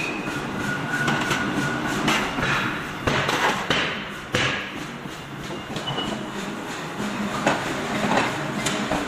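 Hot iron being forged: irregular hammer blows on the metal over a continuous clatter, with short metallic rings between some strikes.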